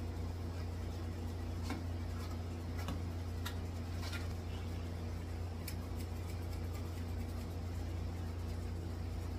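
A steady low hum throughout, with a few faint, short scratchy strokes of a grooming brush through a dog's dry coat between about two and six seconds in.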